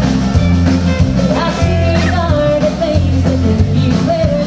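A song with a singing voice over a steady bass beat.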